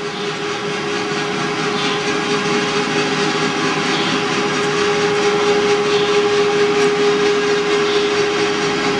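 Electric overhead crane hoist motor running as it lifts a long steel beam: a loud, steady whine over a mechanical hum.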